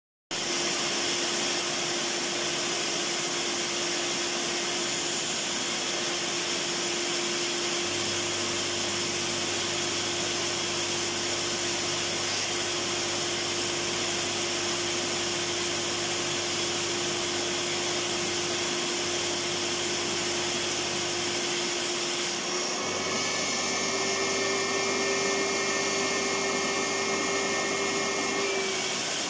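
Electric vacuum cleaner motor running steadily, a continuous whooshing hum whose pitch steps up slightly about 23 seconds in.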